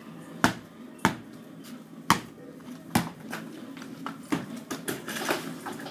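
A basketball dribbled on a concrete court: sharp single bounces about once a second, coming closer together near the end.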